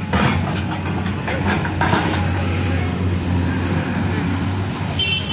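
Diesel engine of a LiuGong crawler excavator running steadily as it digs, with a few sharp knocks in the first two seconds. A high-pitched sound starts near the end.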